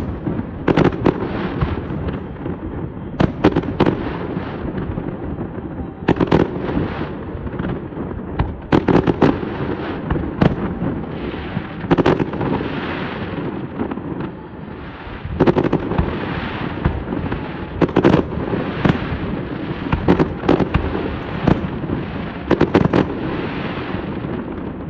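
Fireworks display going off: repeated sharp bangs of bursting shells, often several in quick succession, over continuous crackling.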